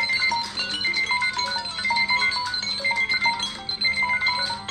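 Several smartphones' timer alarm tones ringing all at once, many short chime-like notes overlapping. The timers have run out and the alarms are going off together.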